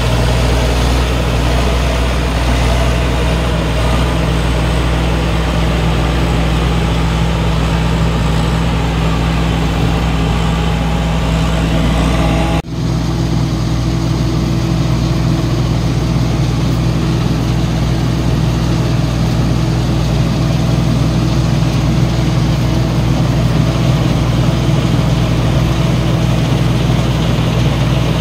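Tracked rice combine harvester's diesel engine running steadily under load while it cuts and threshes rice: a deep, even drone. Near the middle it drops out for an instant and then carries on.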